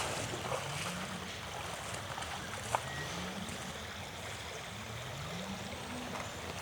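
Creek water running steadily, with a faint low tone that slowly rises three times.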